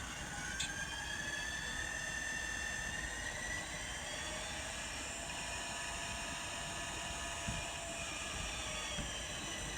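Recorded diesel prime-mover sound of an SD40-2 from a DCC sound decoder's small speaker in an N scale model locomotive, running steadily with its pitch slowly rising and later easing back down. A brief click about half a second in.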